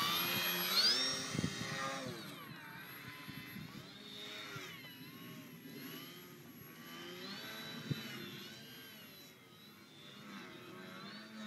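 Electric motor and propeller of a Charger CR-2 Depron foam RC plane whining in flight, its pitch rising and falling again and again with throttle changes. Loudest for the first two seconds, then fainter.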